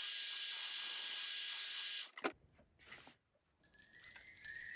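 300-watt heat gun blowing with a steady hiss, which stops suddenly about two seconds in with a short click. After a brief pause, rising sweeping electronic tones of a closing jingle start near the end.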